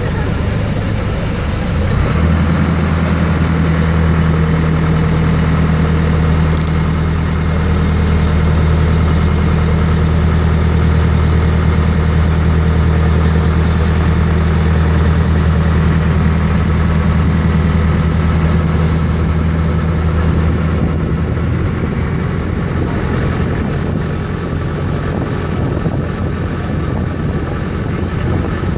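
A boat's engine running steadily with a low hum, heard from on board over wind and water noise; the engine note eases off about twenty seconds in.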